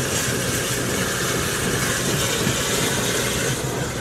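A car driving at speed, heard from inside the cabin: a steady mix of engine, tyre and wind noise. It eases slightly near the end.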